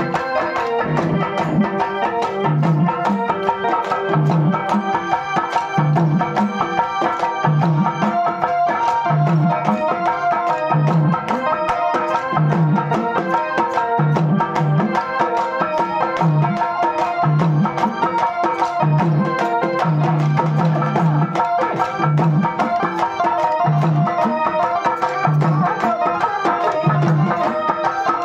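Live Pandari bhajana folk music: a double-headed barrel drum beats a steady low stroke about once a second under quick, sharp clicks and a sustained melody.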